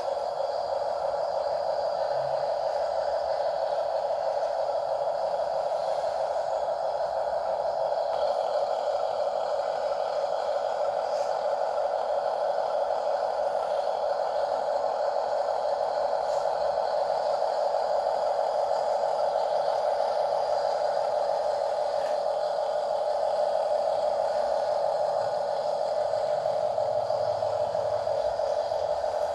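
Small electric motor and gearbox of a scale RC car whining steadily as it drives, with an even, unbroken pitch.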